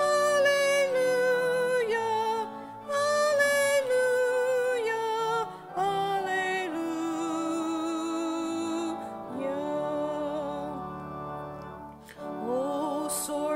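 Church hymn music: a melody sung with vibrato over sustained accompanying chords, softening briefly about two and a half seconds in and again near the end.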